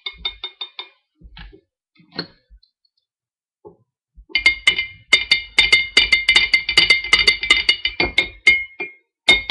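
A spoon stirring in a glass, clinking against its sides with a high ringing tone that stays on the same pitch. A few scattered clinks come first, then a fast run of about ten clinks a second from about four seconds in until near the end.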